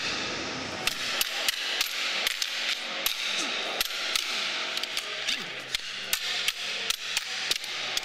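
Metal practice rods standing in for lightsabers clacking together in a fast sword-fight rehearsal: an irregular string of sharp knocks, about two to three a second.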